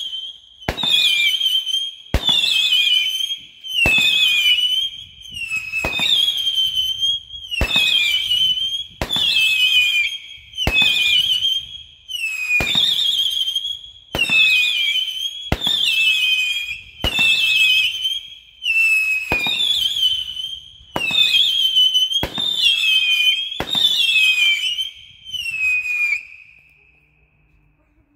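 Winda 'Sexy Sisters' 200g 16-shot whistle cake firing its shots one after another, about one every second and a half. Each shot is a sharp pop at launch followed by a shrill whistle of about a second that wavers and falls in pitch, with no bang at the end. The last whistle trails off about two seconds before the end.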